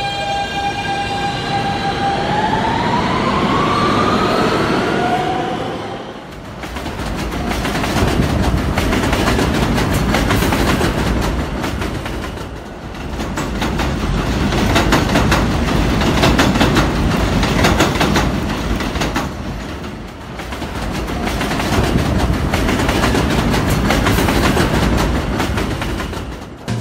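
New York City subway train pulling away: its electric traction motors whine at a steady pitch, then rise in pitch as it speeds up. About six seconds in, this gives way to a loud rumble of wheels on rail with clickety-clack, swelling and fading in waves.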